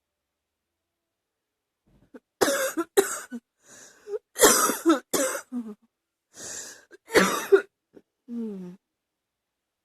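A woman's chesty cough: after a quiet start, a fit of harsh coughs begins about two seconds in, coming in bursts with sharp in-breaths between, and tails off into a short voiced sound near the end.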